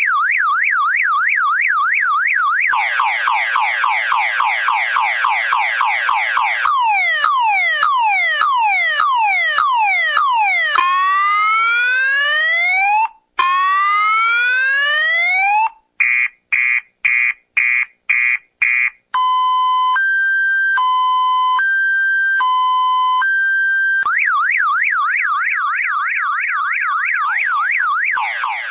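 Car alarm siren cycling through its tone patterns: a fast up-and-down warble, quick rising sweeps, falling sweeps, two long rising whoops, a string of about six rapid beeps, and a slow two-tone high-low alternation, before returning to the warble near the end.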